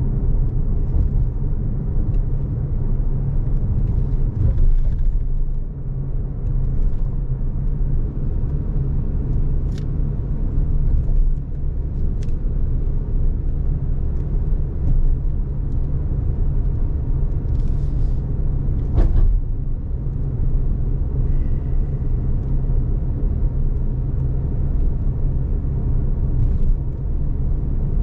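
A steady low rumble, with a few faint clicks.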